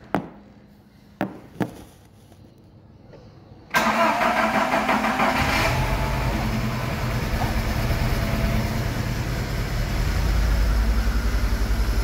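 A few handling clicks, then about four seconds in a Volkswagen AP 1.6 inline-four engine cranks briefly on the starter, catches, and settles into a steady cold idle. The engine is quiet, with no hydraulic lifter tapping on the cold start.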